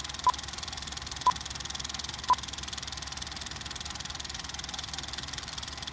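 Three short electronic beeps of one steady pitch, one second apart, stopping about two and a half seconds in, over a steady hiss and low hum.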